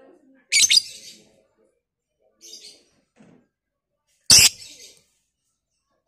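Lovebird giving a few short, shrill, harsh chirps with gaps between them; the loudest comes about four seconds in.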